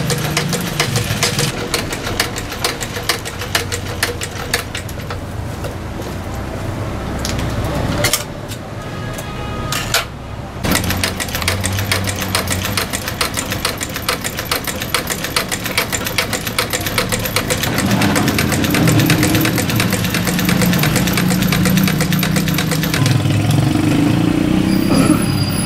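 Cobbler's sewing machine stitching a sneaker, its needle clattering in a rapid, even run, with a short break about eight seconds in. Over the last several seconds a low engine sound joins in.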